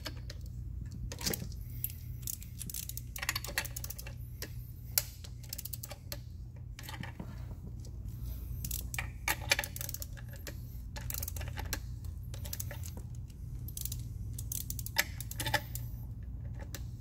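Ratcheting torque wrench with a crow's foot clicking in irregular clusters as it is worked back and forth, turning the reverse-threaded pullout of an injector-removal tool to draw a fuel injector out of a BMW N55 cylinder head. A low steady hum runs underneath.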